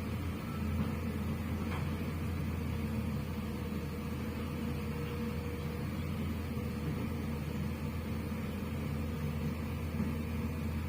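Steady low engine or motor hum, running evenly without revving.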